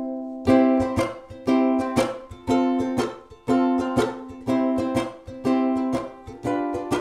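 Ukulele strummed through an amplifier with a clean signal, no effects on. It plays a steady rhythm of chords, a strum about every half second.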